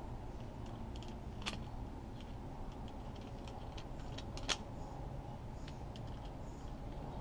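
A few faint sharp clicks from a click-type torque wrench being handled as its handle is twisted to set the torque, the clearest about one and a half seconds and four and a half seconds in, over a steady low background rumble.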